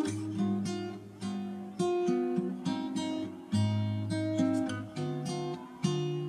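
Background music: strummed acoustic guitar, a new chord struck about every half second to second.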